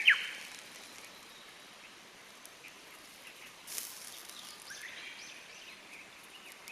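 A Japanese bush warbler ends its song right at the start with a quick whistled flourish that sweeps upward, the loudest sound here. A single short crackle comes near the middle. Through the second half, smaller birds chirp in quick, repeated short calls.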